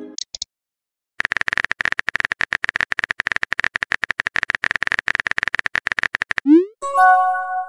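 Rapid simulated keyboard tapping clicks from a texting-story app, starting about a second in. About six and a half seconds in they stop for a quick rising swoop and a short electronic chime of several notes, the app's message pop.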